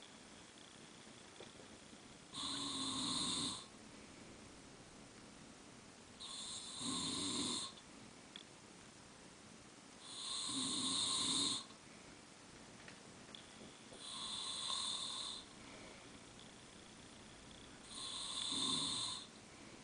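Snoring during sleep: five loud snores in an even rhythm, one about every four seconds, each lasting about a second and a half.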